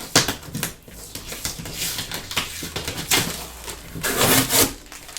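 Cardboard bike shipping box being opened and handled: a run of rustling and scraping with sharp clicks, loudest around two seconds in and again about four seconds in.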